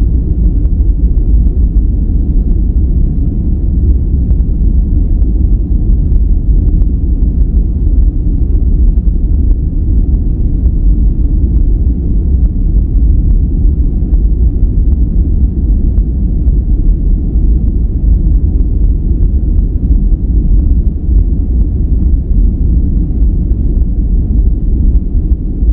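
Steady synthetic noise track for relaxation, deep and rumbling rather than hissy, with no treble. It is even throughout, with no changes or events.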